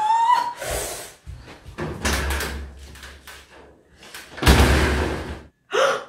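A woman's rising, wailing cry at the start. Then a sliding security screen door rattles along its track, briefly around two seconds in and louder for about a second from about four and a half seconds in.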